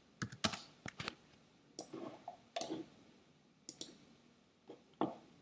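Scattered, irregular clicks of a computer mouse and keyboard, about nine in a few seconds, the loudest near the end.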